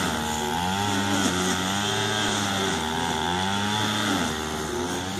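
Gas-powered string trimmer (brush cutter) running, its engine speed rising and falling in repeated swells as it cuts through grass and weeds.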